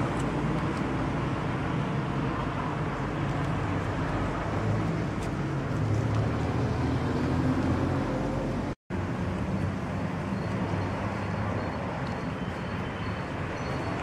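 Steady low rumble of street traffic, broken by a short dropout to silence a little under nine seconds in.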